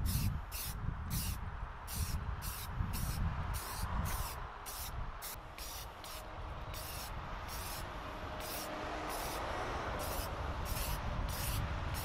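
Background music with a quick, steady beat of short hissing ticks over a low pulse.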